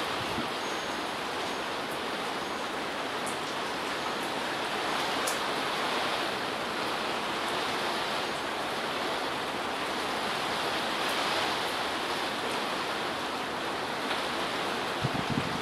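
Storm noise of heavy rain and wind: a steady rushing hiss with occasional sharp ticks of drops striking nearby, and a couple of low bumps near the end.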